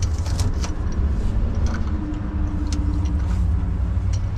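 Steady low rumble of motor vehicles running, with a few small scattered clicks on top.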